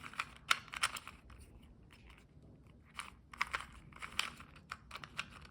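Plastic 2x2 Rubik's cube being turned by hand, its layers clicking in quick irregular bursts as it nears the last step of the solve.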